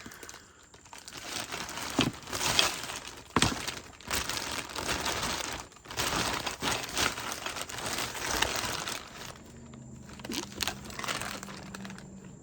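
Wrapping crinkling and rustling as items are handled and unwrapped, with a few sharp knocks about two and three and a half seconds in.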